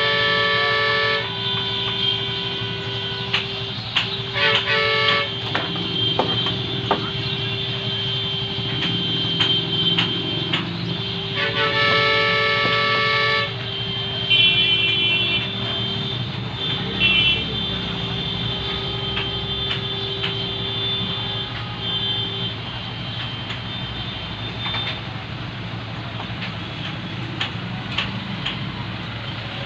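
A vehicle horn sounds two long honks, one at the very start and another about twelve seconds in, followed by several short higher beeps. Underneath runs a steady low hum of traffic, with scattered clicks and knocks.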